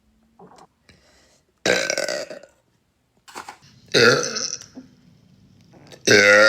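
A young woman burping loudly three times, about two seconds apart, each burp under a second long; the last starts near the end.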